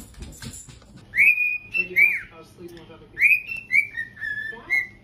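Cockatiel whistling a tune: a run of clear, high whistled notes with quick upward swoops and falling slurs, starting about a second in.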